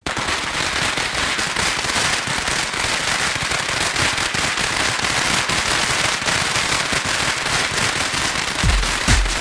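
A long string of firecrackers going off in a dense, continuous crackle. A heavy electronic bass beat comes in near the end.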